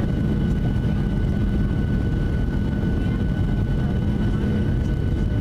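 Steady cabin noise inside a Boeing 737-700 on approach: the low rush of airflow and its CFM56-7B turbofan engines, with a faint, steady high whine over it.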